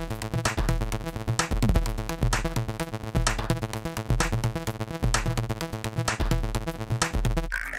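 Background synthesizer music with a steady beat, which breaks off abruptly near the end.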